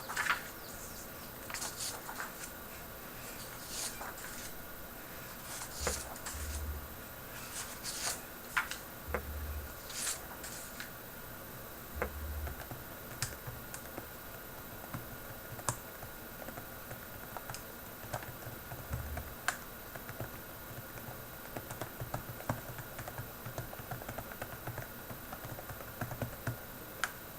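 Keys of a ZX Spectrum computer keyboard being pressed in irregular runs of short clicks, with a few soft low thumps among them. A faint steady high whine runs underneath.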